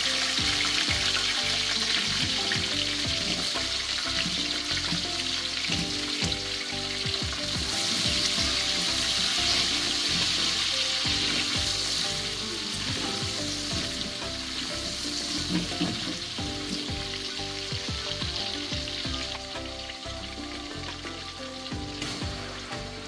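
Sliced onions sizzling as they fry in hot oil in a large metal pot, stirred with a metal spoon. The sizzle is strongest about halfway through and eases toward the end.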